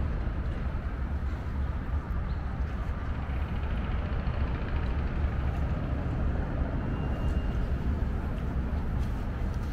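Steady outdoor city background noise dominated by a deep, constant rumble, the kind made by traffic on a nearby street, with a few faint high tones near the end.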